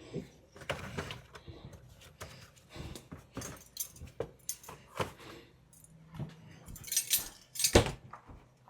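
Kitchen utensils being handled while measuring baking ingredients: a run of light metallic clicks, taps and clinks, with a louder clatter about seven to eight seconds in.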